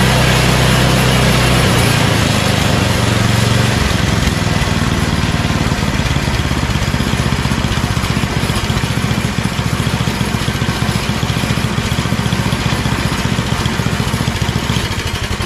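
8 hp Tecumseh engine of a Yard Machines snowblower running on its newly replaced carburetor, the engine note changing a couple of seconds in and then holding on.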